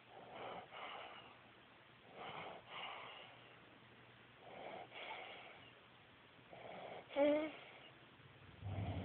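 A sleeping baby snoring: soft, wheezy breaths at an even pace, about one every two seconds, with a short squeaky snort near the end.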